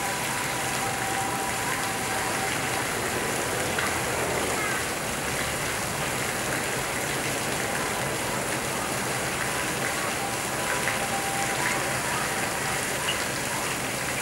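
Steady hiss and splatter of a water spray falling onto the surface of a pool.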